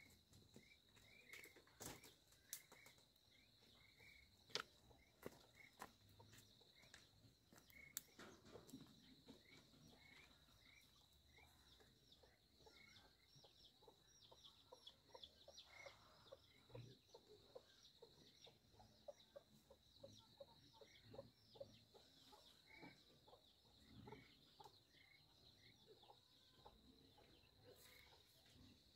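Faint chicken calls: short high peeps repeating about once a second, over a steady high insect drone, with scattered light clicks.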